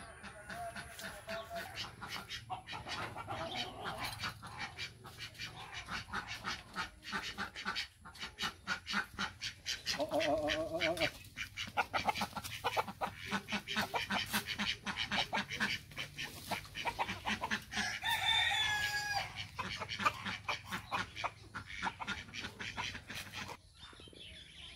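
A flock of backyard chickens clucking busily around their feeder. Two longer calls stand out above the clucking, one about ten seconds in and one about eighteen seconds in.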